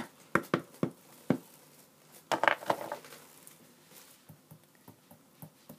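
Hands handling small objects on a wooden desk. A few sharp taps and clicks come in the first second and a half, then a brief rustle about two and a half seconds in, then faint light ticks.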